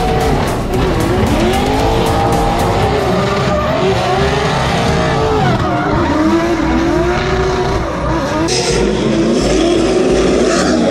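Drift car at full throttle, its engine revving up and down as it slides, with squealing tires. The tire hiss grows louder about eight and a half seconds in.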